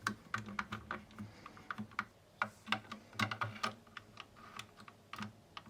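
Faint, irregular small clicks and taps of plastic parts being handled: a fridge light push-button switch being fitted into the plastic thermostat housing and the plastic pusher clipped back on.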